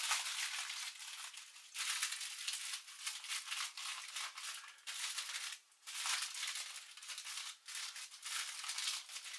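Aluminium foil crinkling as hands press and fold it around the rim of a pudding bowl, in uneven stretches with a few brief pauses.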